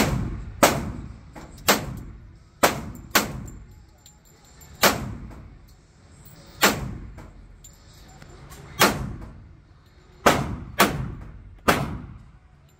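Semi-automatic pistol fired about ten times in unhurried single shots, half a second to two seconds apart. Each report echoes off the hard walls of an indoor range.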